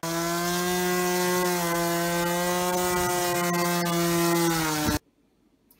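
Homemade robot lawnmower's electric motor running, a steady hum over a hiss, which stops abruptly about five seconds in.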